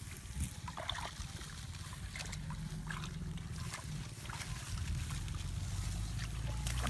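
Hands groping and splashing in shallow muddy paddy water: light sloshes and small scattered splashes over a steady low rumble that grows louder toward the end.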